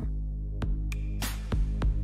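Electronic background music: a steady deep bass with a few sharp percussion hits.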